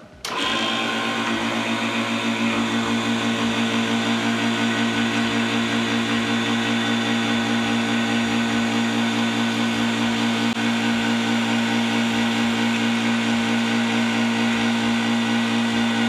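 Laboratory vacuum pump switching on a fraction of a second in, then running with a steady hum and a faint regular pulse as it pulls a vacuum on a flask of water.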